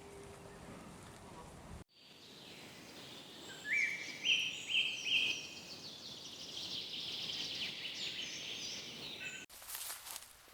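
Small birds chirping and trilling in quick, high, stepped runs over a faint outdoor hiss, starting abruptly after a short stretch of quiet hiss. Near the end it cuts off sharply to a few scattered clicks.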